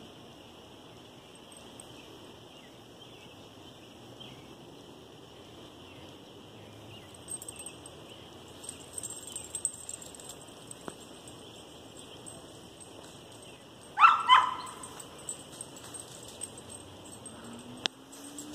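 Young English Pointer barking twice in quick succession, about three-quarters of the way through, over a steady faint high hum in the background.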